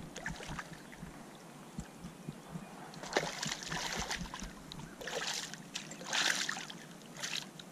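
Hooked channel catfish thrashing and splashing at the surface in shallow water, in several short bursts from about three seconds in.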